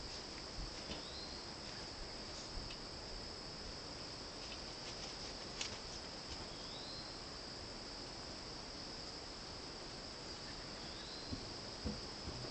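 Steady high-pitched insect trill, cricket-like, with a few faint clicks and three short rising chirps, about one, seven and eleven seconds in.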